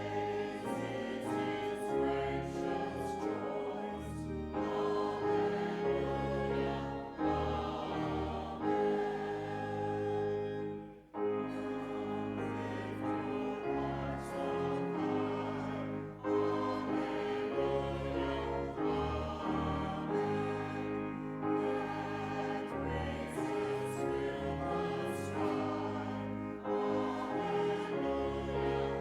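Congregation singing a hymn, with the accompaniment holding long chords. There is a short pause between phrases about eleven seconds in.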